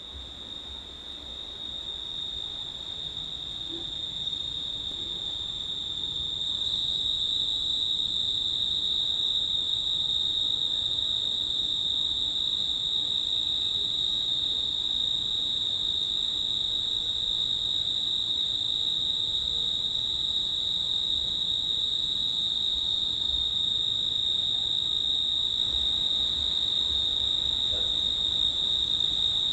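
Cricket trilling in one unbroken, steady high-pitched chirr, swelling in over the first few seconds, over a faint low background hiss.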